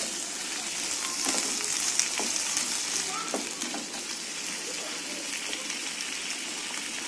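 Sliced bamboo shoots sizzling in a nonstick frying pan while a wooden spatula stirs them, with a few light knocks and scrapes of the spatula in the first few seconds. After about four seconds the stirring stops and the steady sizzle goes on alone.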